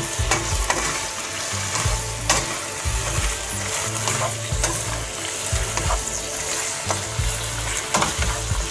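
Chicken and vegetables sizzling in a nonstick wok on a gas hob while a wooden spatula stirs and tosses them, with irregular scrapes and knocks of the spatula against the pan over a steady frying hiss.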